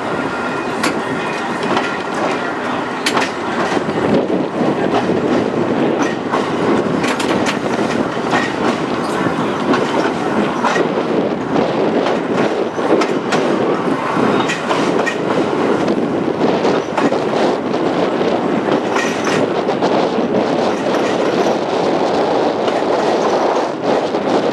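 Historic electric streetcar running along its steel rails at a steady pace: a continuous rolling rumble from the wheels, with frequent irregular clicks and clacks as they pass over the track.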